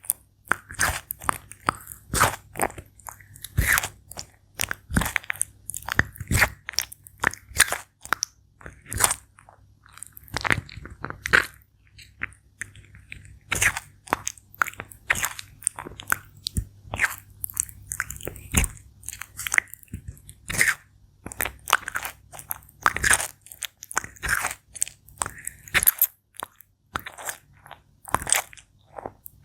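Sulcata tortoise biting and chewing crisp food, with irregular loud crunches about one or two a second.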